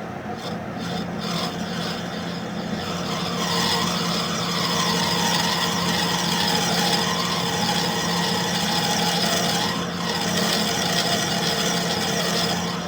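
Steady rasping of metal being abraded against metal over a constant machine hum. The rasping builds up about three seconds in and eases off near the end.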